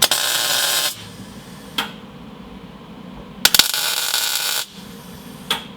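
MIG welder laying two short welds on the floor pan sheet metal, each about a second long, with a short click between them and another near the end. The heat is turned up at the same wire speed, and the welds sound right.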